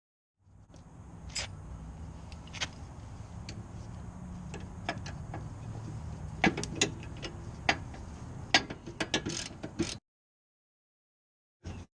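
Irregular sharp metallic clicks and clinks of hand tools working on a car's rear disc brake assembly, over a steady low hum. The clicks come thicker in the second half. The sound starts and cuts off abruptly, and a brief clink follows near the end.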